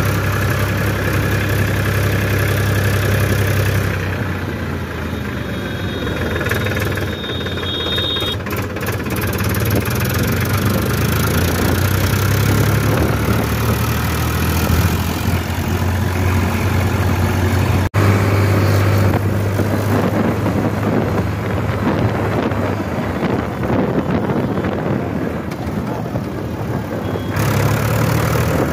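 Powertrac Euro 50 tractor's three-cylinder diesel engine running steadily while the tractor drives along, heard from the driver's seat.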